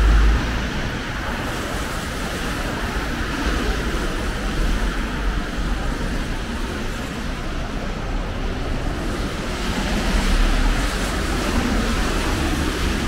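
Street traffic on a wet road: a steady hiss of tyres on wet asphalt over the low rumble of passing cars and vans, swelling a little as a vehicle passes about ten seconds in.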